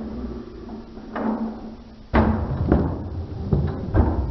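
Toy Grave Digger monster truck banging against a stacked tower of alphabet blocks: a sudden knock about two seconds in, then a run of irregular thumps and knocks.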